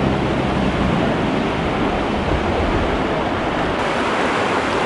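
Steady rush of fast-flowing floodwater pouring across a flooded road ford.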